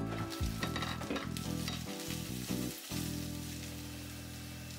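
Halved Brussels sprouts sizzling as they fry in oil in a stainless pan, as the glass lid is lifted off and a spatula stirs them, over background music.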